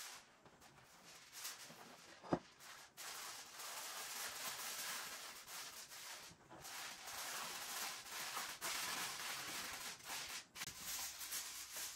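Aluminium foil crinkling and rustling as it is pressed down and crimped around the rims of baking dishes, with one sharp tap a couple of seconds in.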